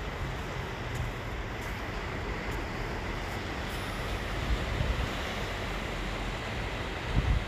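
Wind blowing across the microphone over a steady hiss of sea surf, with gusts rumbling on the microphone about four and a half and seven seconds in.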